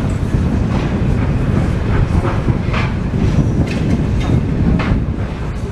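Demolition machinery working on a burnt-out building: a steady low engine rumble, with irregular clanks and clatter of rubble and timber being pulled loose.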